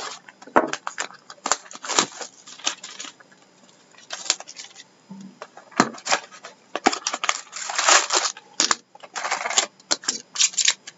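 Cardboard trading-card hobby box being cut open and pulled apart, with crackling and tearing of its wrap and flaps, then card packs clicking and rustling as they are lifted out and stacked. It comes as many short clicks and crackles, with two longer stretches of rustling near the end.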